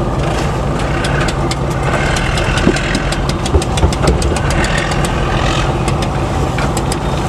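Fishing vessel's diesel engine running steadily with an even knock, with many sharp clicks over it that thin out near the end.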